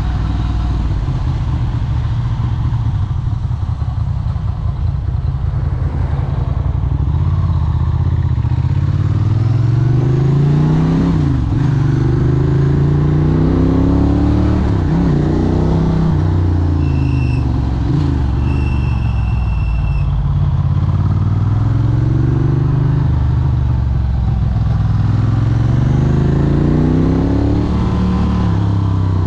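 Moped engine running under way, its pitch climbing and falling again and again as it speeds up and eases off.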